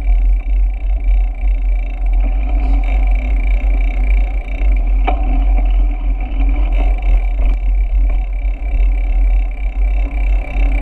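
Steady wind rumble on the microphone of a camera riding along on a moving bicycle, with the hum of the ride underneath and one sharp click about halfway through.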